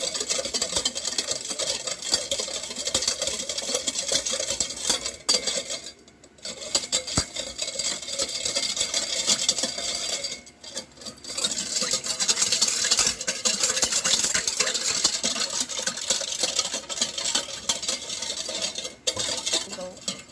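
A utensil stirring water and brown sugar in a bowl, with steady, fast scraping and clinking as the sugar dissolves. The stirring pauses briefly about six and ten seconds in.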